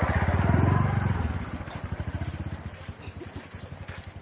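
A small engine running: a fast, even low throb that is loudest in the first second and then fades away.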